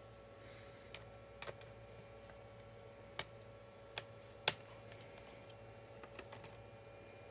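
Scattered light clicks and taps, about six spread over several seconds with the sharpest about halfway through, of small tools, screws and parts being handled while a laptop is taken apart, over a faint steady hum.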